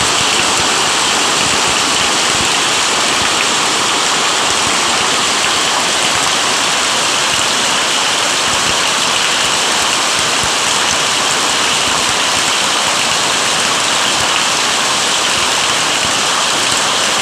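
Heavy rain and hail falling hard, a loud steady hiss that does not let up.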